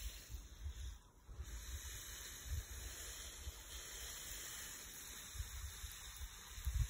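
Water spraying from a garden hose onto soil and plants: a steady hiss that dips briefly about a second in, with irregular low rumbling underneath.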